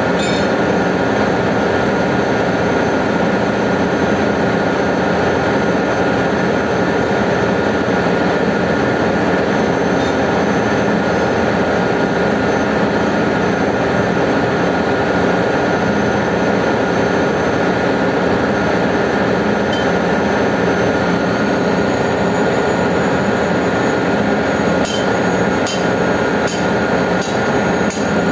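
Ship's engine-room machinery running: a loud, steady drone with a thin whine held through it. Near the end a few light metallic clinks from tools and parts being handled.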